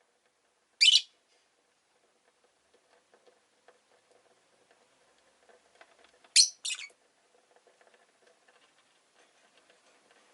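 Rosy-faced lovebird giving one sharp, high chirp about a second in, then two quick chirps about six seconds in, with faint light tapping in between.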